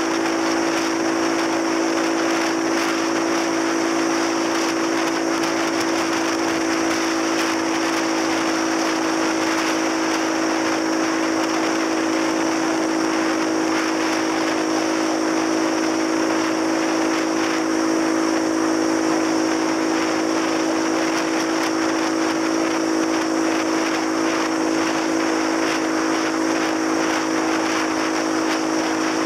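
Small motorcycle's engine droning at a steady cruising speed, one unchanging pitch, over a constant rush of wind and road noise heard from the rider's seat.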